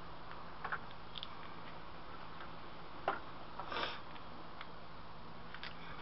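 Light handling sounds: a few faint clicks and taps, the sharpest about halfway through, followed by a brief scrape. Under them a steady hiss and a low hum.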